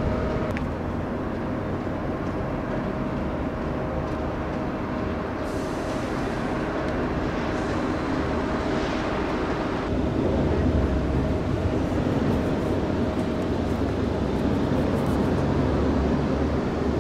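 Steady rumbling background noise with a faint steady hum through it, growing a little louder about ten seconds in.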